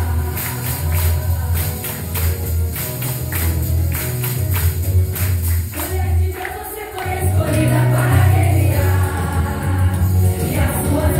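Gospel music from a women's choir with tambourine and a low bass accompaniment. For about the first six seconds, rhythmic tambourine strokes and bass carry the music, and the choir's voices come in strongly about seven seconds in.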